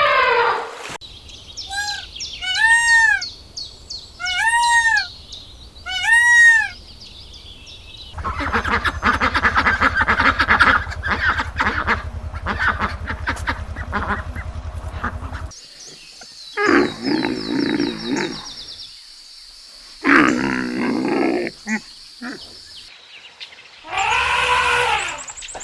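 A string of different animal calls in turn: a few short rising-and-falling pitched calls, a long rasping buzz, then loud rough roar-like calls and more cries near the end.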